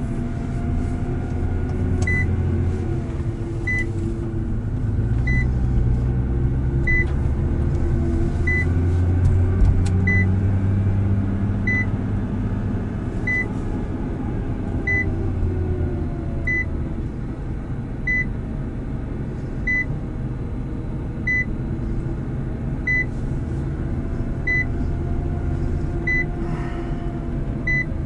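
Nissan GT-R R35's twin-turbo V6 running at low revs, heard inside the cabin as the car rolls slowly. A short high electronic beep repeats evenly about every one and a half seconds.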